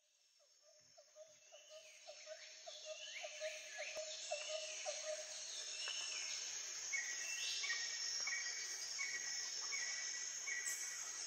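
Forest soundscape fading in from silence: birds calling with repeated downward-sliding whistles over a steady high insect drone, and a regular low chirp about twice a second. About seven seconds in, a short high note starts repeating at a steady pace.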